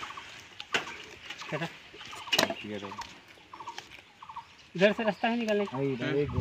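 Short clucking calls repeated every half second to a second, with a few sharp clicks. A longer, voice-like call joins near the end.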